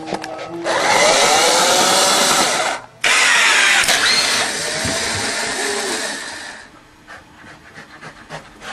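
A loud motor-driven machine whirring in two stretches, about two seconds and then about three and a half seconds, with a short break between and its pitch sliding up and down.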